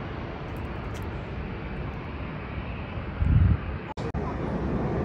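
Jet aircraft at an airport, a steady rushing engine noise. A short low-pitched swell comes about three seconds in, and the sound drops out twice for an instant just after.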